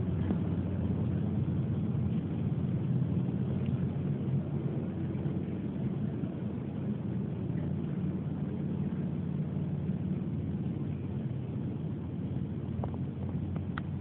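Steady low mechanical hum, with a faint click or two near the end.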